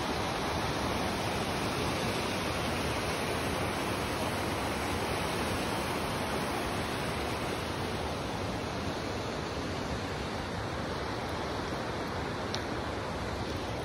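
Steady rushing of falling water from a waterfall, an even roar with no breaks.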